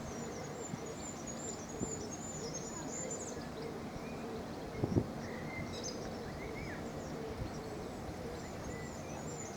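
Outdoor ambience with faint high twittering of small birds over a steady background hum, and two short dull knocks about five seconds in.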